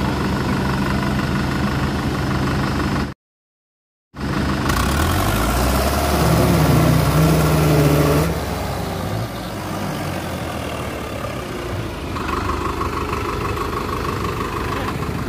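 Diesel engines of two 60 hp farm tractors running hard under load in a tractor tug-of-war. The sound cuts out completely for about a second near the start. After the gap the engines come back louder, and one climbs in pitch as it revs up for a few seconds, then settles back to steady running.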